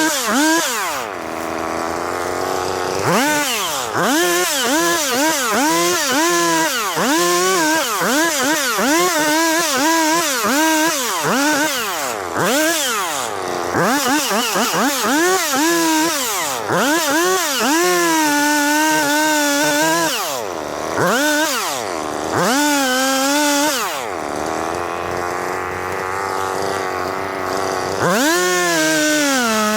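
Chainsaw engine revved up and let back down again and again in quick blips while cutting up downed trees. At times it settles at a steady lower pitch for a couple of seconds.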